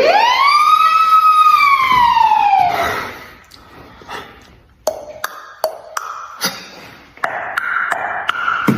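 A siren-like wail that rises and then slowly falls away over about three seconds. It is followed by scattered sharp clicks and short percussive beatbox-style sounds that settle into a rhythm near the end.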